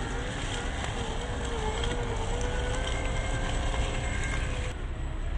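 The stock 540 brushed electric motor and gear drive of a CrossRC XT4 RC crawler truck whining, its pitch wavering with the throttle, over the crackle of tyres rolling on dry leaves. The whine breaks off briefly near the end and comes back a little lower.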